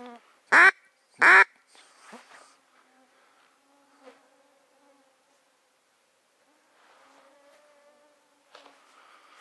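Two loud, short duck quacks close by, about half a second apart near the start, then a fainter one. After that comes the thin whine of mosquitoes around the microphone.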